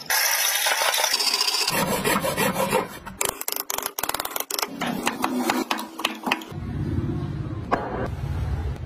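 Steel wood chisel paring and chopping into hardwood: scraping and rubbing at first, then a run of sharp taps as the blade is driven into the wood. A low steady hum sets in near the end.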